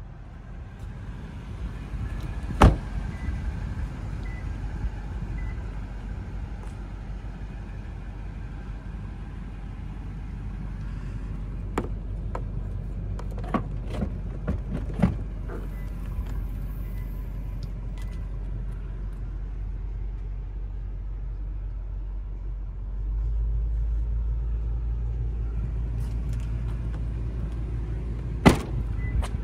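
Steady low rumble around a Toyota Land Cruiser, with a loud door thump about two and a half seconds in and a few light clicks and knocks midway. The rumble grows louder late on, and another sharp door thump comes near the end, at the rear of the truck.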